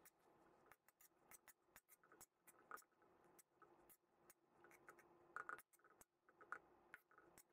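Near silence with a few faint scrapes and taps of a metal spatula against a metal pan as fried rice is stirred, the clearest between about five and seven seconds in.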